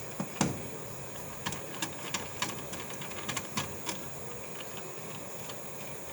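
A run of small, sharp clicks and taps, irregularly spaced, from handling screws and hardware on a fire alarm control panel, over a steady background hiss; the clicks stop about four seconds in.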